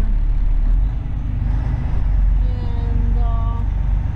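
Steady low rumble of a semi truck's diesel engine and road noise, heard from inside the cab while driving slowly.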